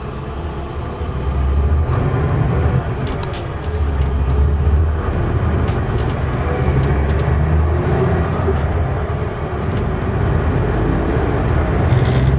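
Interior of a Mercedes-Benz O560 Intouro coach on the move: the diesel engine runs with a steady low drone, swelling about a second in and again near four seconds as the bus pulls ahead, with scattered light ticks from the cabin.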